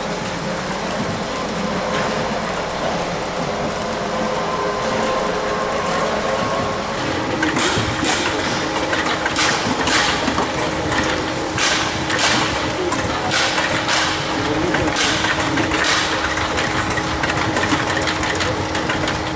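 Peach sorting line running, with a steady mechanical hum and conveyor rattle. About seven seconds in, a steady tone joins it, along with frequent, irregular sharp clacks.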